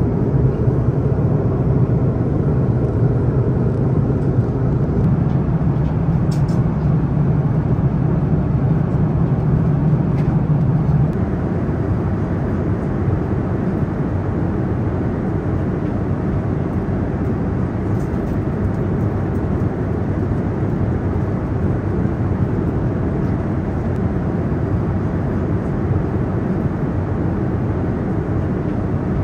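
Steady cabin noise of an Airbus A330-900neo in flight, a low drone of engines and rushing air. The low drone eases a little about eleven seconds in.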